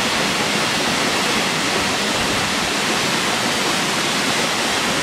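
Virginia Falls, a tall waterfall plunging down a rock cliff into a pool, making a steady, even rush of falling water.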